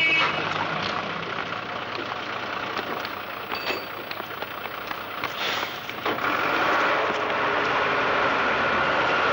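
Engine of a city bus idling at a stop, a steady rumbling noise mixed with street traffic.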